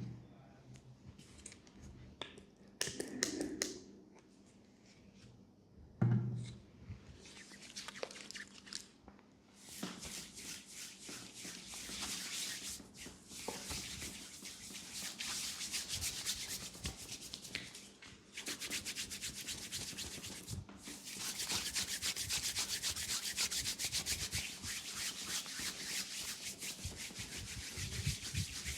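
Hands rubbing and scratching quickly through hair on a scalp during a head massage, a dense run of rapid strokes that grows steadier and louder over the second half. A few soft knocks come before it.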